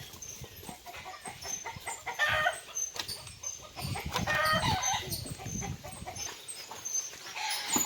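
Chickens clucking, several short calls in loose clusters.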